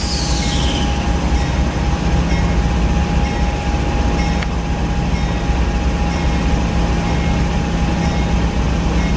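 Amtrak GE P42DC diesel locomotive running steadily while standing, a deep, even rumble with a thin steady whine above it.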